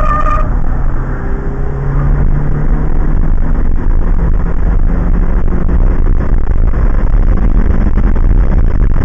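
2001 Subaru Impreza 2.5 RS's 2.5-litre flat-four engine pulling hard under acceleration on a track straight, heard from inside the cabin over road and wind noise, its pitch rising slowly as speed builds. A brief high squeal right at the start.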